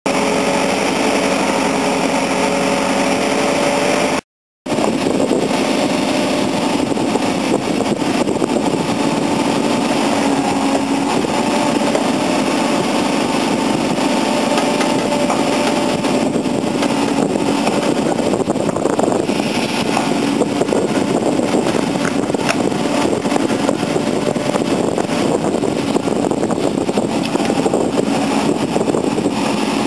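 Heavy diesel engines of a JCB 3CX backhoe loader and a Komatsu D65EX bulldozer running steadily under load during a recovery pull. The sound cuts out completely for a moment about four seconds in.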